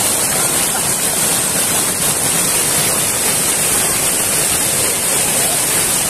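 River water rushing steadily over a low dam of tarp-covered sandbags right at the microphone.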